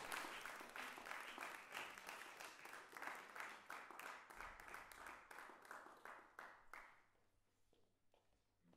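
Audience applause, many hands clapping, fading out over about seven seconds until it stops.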